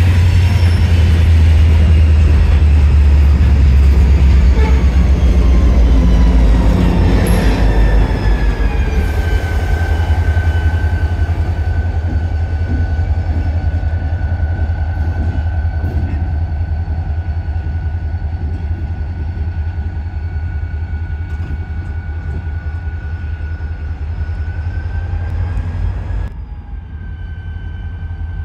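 EMD GP40-2 diesel-electric locomotive, with a 16-cylinder turbocharged diesel, running with a heavy rumble that is loudest for the first several seconds and then fades. A whine falls in pitch and then holds steady. The sound drops off abruptly near the end.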